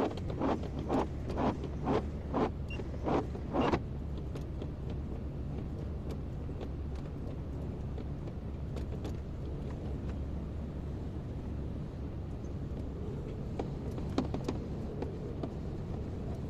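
Kobelco excavator's diesel engine running with a steady low drone. For the first few seconds a regular pulsing sound comes about twice a second over it, and a few sharp clicks come near the end.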